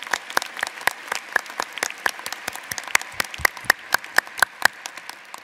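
Audience applauding, a few close individual claps standing out sharply over the general clapping, which dies away near the end.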